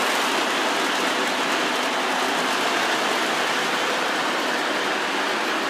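Model train running on its track, a steady, even rolling noise of wheels on rails.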